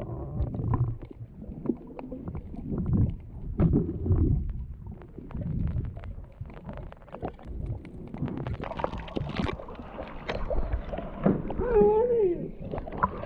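Muffled sound of seawater picked up by a camera held underwater: an uneven low rumble and sloshing, with many scattered clicks and crackles. Near the end a short wavering pitched sound comes through as the camera nears the surface beside the kayak.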